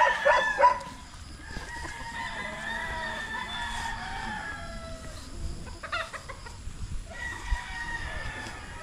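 Gamecocks crowing: long drawn-out crows one after another, with another starting about seven seconds in.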